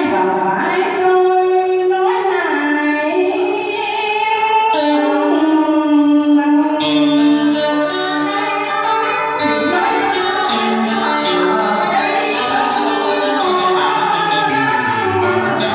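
A singer performing a song with instrumental accompaniment, holding long notes and sliding between them.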